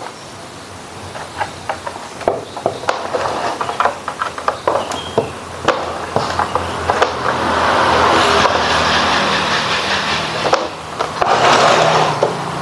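Scattered clicks and knocks of hands handling a CRT television chassis and its cable connectors. From about seven seconds a loud, steady rushing noise with a low hum beneath it sets in, dips briefly near eleven seconds, then resumes.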